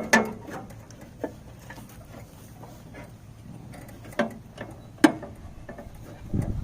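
A few scattered sharp metal clicks and knocks, the strongest near the start and about five seconds in, as a riding mower's brace cover is worked and wiggled loose by hand.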